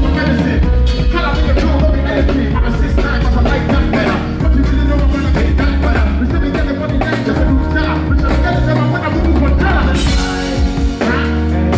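A band playing with a drum kit and a heavy bass line.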